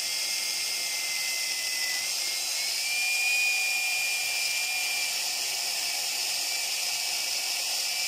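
Battery-powered Henry cordless vacuum cleaner running on speed two, the higher of its two power settings: a steady high motor whine over rushing air. The pitch rises slightly about two and a half seconds in.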